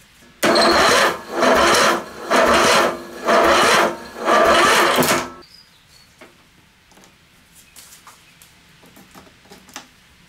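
Briggs & Stratton engine of a ride-on mower turned over by hand at the flywheel, four loud whirring bursts of about a second each as it spins freely with no compression. After that, a few light clicks as battery charger clamps are fitted.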